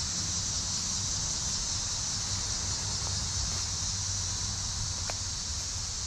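A steady, high-pitched chorus of insects, unbroken throughout, with a low rumble underneath.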